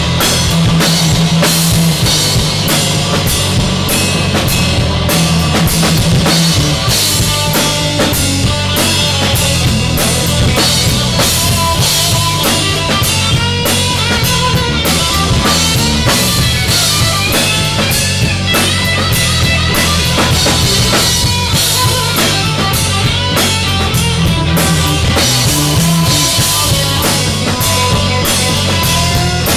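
Loud rock music with a drum kit playing a steady beat over a repeating bass line, without singing.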